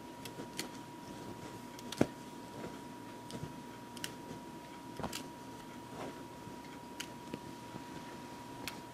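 Scattered light clicks and taps from a cat pawing at a wire-and-cardboard wand toy on a leather couch, with one sharper click about two seconds in. A faint steady high tone runs underneath.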